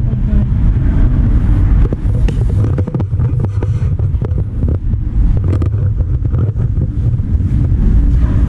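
Heavy low rumble of wind buffeting the microphone of a camera carried while walking, with scattered clicks and knocks of handling and steps.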